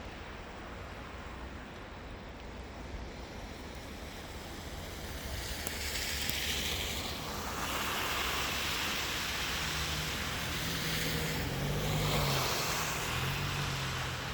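Vehicles passing on a snow-covered road: a steady low rumble, then tyre hiss swelling about halfway through and again shortly after, with a low engine hum shifting in pitch near the end.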